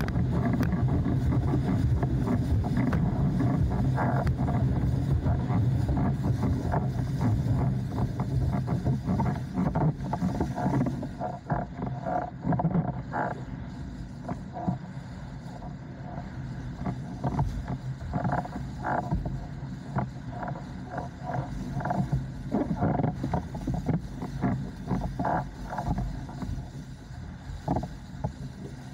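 Windsurf board and sail under way on open water: a steady rush of wind and water. About eleven seconds in it drops to a quieter rush broken by irregular short slaps.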